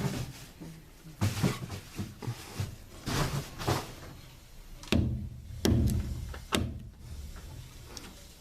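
Irregular knocks and thuds with short scraping or rustling noises between them, the loudest knocks coming about five to seven seconds in.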